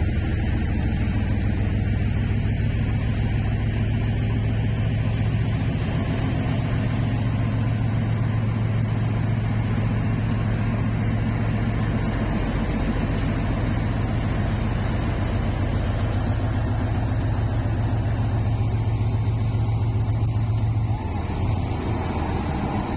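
A train's diesel engine running with a steady low drone and an even fine pulse; its tone shifts about two seconds before the end.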